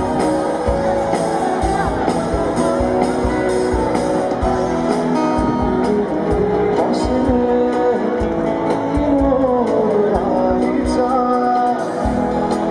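A live rock band plays through a PA, with drums, electric and acoustic guitars, and a male singer.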